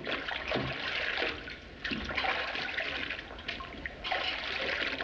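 Water running and splashing as hands are washed and scrubbed in a washbasin, in uneven spurts with brief dips about two and four seconds in.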